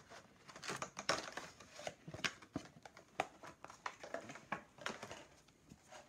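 Clear plastic packaging insert of a toy box crinkling and crackling in irregular clicks as a vinyl figure is handled in it.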